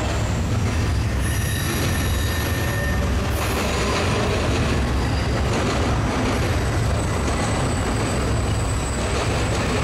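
Intermodal freight train rolling past close by, a loud steady rumble of wheels on rail. Thin high-pitched wheel squeals come in about a second in and again from about seven seconds in.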